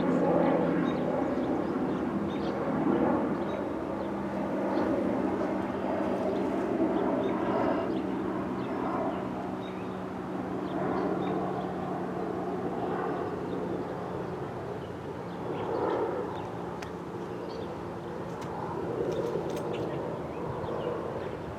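Federal Signal STH-10 rotating dual-tone outdoor warning siren sounding its steady alert signal, its level swelling and fading every few seconds as the rotating head sweeps past.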